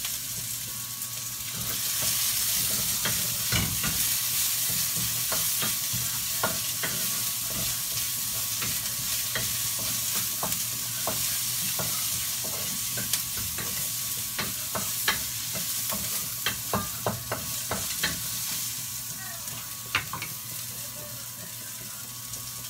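Garlic and onion sizzling in hot oil in a wok, with a wooden spatula scraping and tapping against the pan as they are stirred. The sizzle grows louder about two seconds in.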